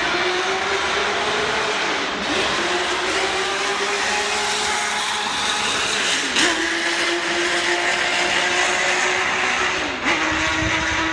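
Honda RA301 Formula One car's 3-litre V12 running hard at high revs, a steady high engine note that dips briefly in pitch three times, about two, six and ten seconds in.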